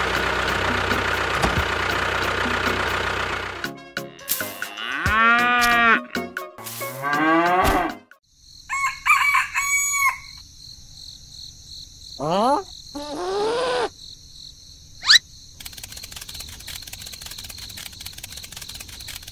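An engine running steadily for about the first four seconds, then a string of short animal calls whose pitch bends up and down, including rooster-like crowing, mixed with brief high tones and a sharp click near the end.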